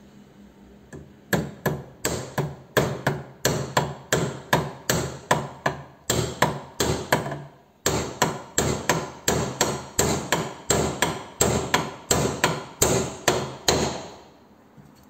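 Hammer blows in a steady run, about three a second, with a short break about halfway through; they stop shortly before the end.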